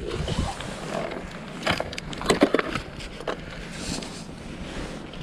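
Crunching and scraping of ice chips and slush around an ice-fishing hole, a few sharp crunches in the middle, over a steady rumble of wind on the microphone.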